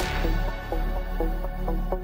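Background electronic music: a bright hit at the start, then a quick repeating pattern of short notes, about four a second, over a steady bass.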